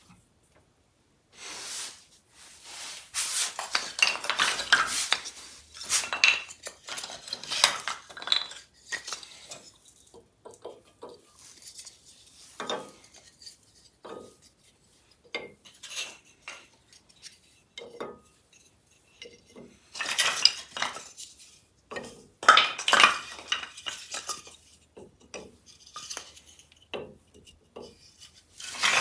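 Metal parts being handled: irregular clinking, clattering and scraping, busiest in two spells, one early and one about two thirds of the way through.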